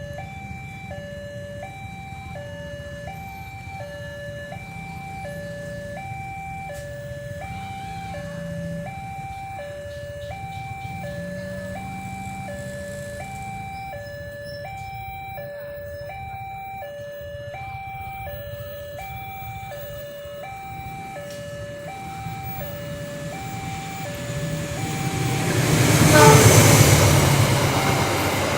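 Railway level-crossing warning siren of the new electronic type, sounding a steady two-tone hi-lo alternation a little slower than once a second per pair. Near the end a train comes up and passes, a loud rush that peaks about two seconds before the end.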